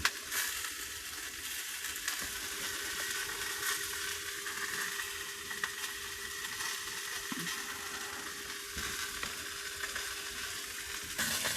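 Sausages sizzling in a pan, a steady hiss, with a faint steady hum underneath.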